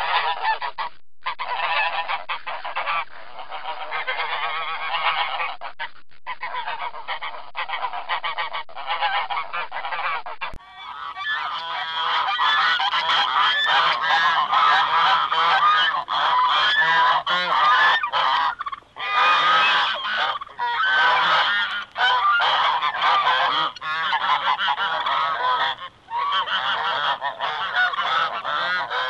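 A large flock of snow geese calling: a dense, unbroken chorus of many overlapping high honks and yelps. About ten seconds in, the sound switches to a brighter, fuller recording of the flock, with a couple of brief lulls later on.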